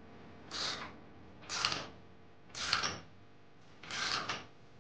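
Bearing puller's forcing screw being wound in with a ratchet wrench: short bursts of ratchet clicking, one stroke about every second, as the puller draws the inner bearing race off the rear hub.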